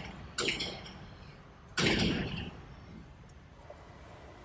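Heavy metal knocking as iron shims are set under the base of a hoisted laminating machine and it is shifted into place: a short knock about half a second in, then a louder, longer clatter near two seconds.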